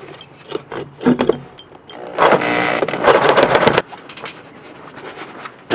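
A reciprocating saw (Sawzall) cutting through the end of a steel square tube: a few light knocks as the blade is set against the metal, then about two seconds in a loud motor-and-blade run lasting about a second and a half, stopping once the end is cut through.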